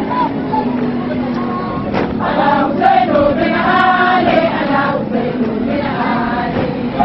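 A large crowd of women chanting together in unison: a Shia procession chant of devotion to Husayn. The chant swells loudest in the middle.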